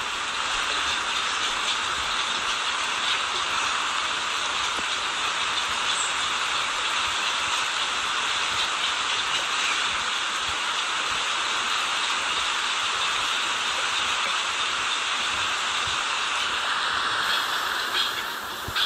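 Steady rush of a small waterfall and stream, an even hiss of flowing water.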